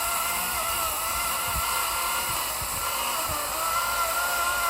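Wild Badger cordless electric chainsaw running and cutting through wood, with a steady high motor-and-chain whine whose pitch wavers and dips slightly as the chain takes the load.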